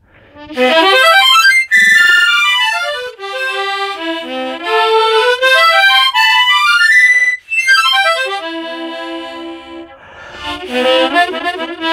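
Hohner Ocean Star tremolo harmonica in C, played as runs of single notes stepping up and down the scale by a learner. There is a short break about seven seconds in.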